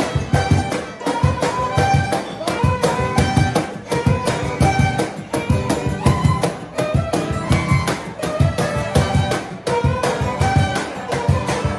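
Live acoustic band playing a lively tune: a violin carries the melody over a strummed acoustic guitar, with a steady beat slapped on a cajón.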